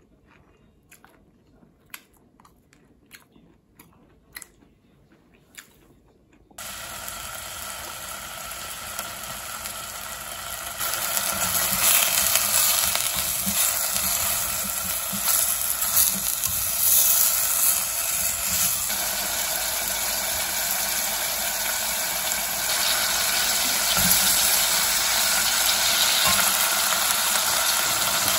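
Soft clicks of chopsticks picking at a plastic takeout tray. About six seconds in, thinly sliced beef brisket starts sizzling in a hot earthenware pot as a spatula stirs it. The sizzle gets louder about eleven seconds in and stays loud and steady.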